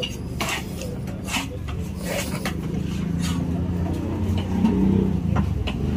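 Large knife cutting tuna on a wooden chopping block: a few short knocks and scrapes of the blade on the wood, over the low rumble of a nearby engine that grows louder toward the end.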